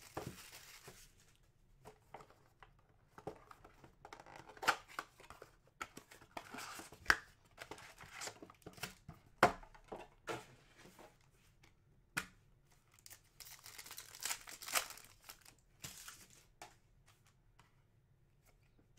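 Cardboard blaster box and foil card packs being torn open by hand, the wrappers crinkling, with scattered sharp clicks and taps as packs and cards are handled.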